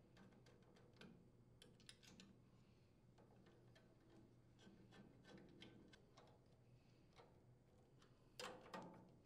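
Faint, scattered metallic clicks and ticks of a nut driver turning screws through a sheet-metal air filter base into the carburetor, with a louder cluster of clicks near the end.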